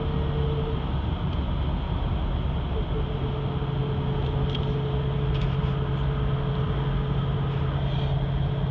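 Steady road and engine noise inside a car cruising on a highway, with a constant low hum running under the tyre and wind noise.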